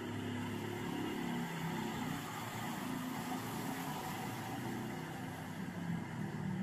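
A motor vehicle's engine running steadily, a low, even hum.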